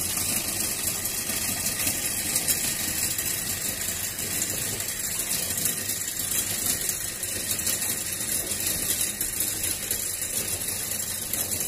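Machinery motor running steadily, with a strong high hiss over it.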